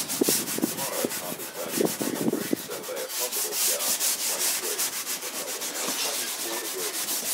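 Coarse steel wool charged with pale boiled oil being rubbed briskly back and forth over an old wooden cupboard's finish, a quick run of scratchy strokes, several a second. It is lifting the milky white film off the old finish.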